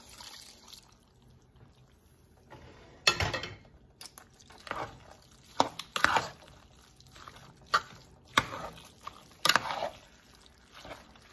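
Cooking juices poured from a container into a pot of rice and ground meat, then a spoon stirring the wet mixture in uneven strokes, scraping and knocking against the pot.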